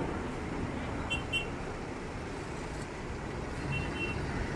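Steady rumble of road traffic, with short high-pitched double beeps about a second in and again near four seconds in.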